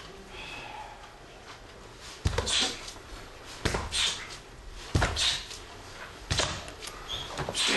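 Karate sparring: strikes and blocks landing between two fighters, one of them in a padded chest protector and headgear. It comes as five sharp hits, roughly one every second and a half.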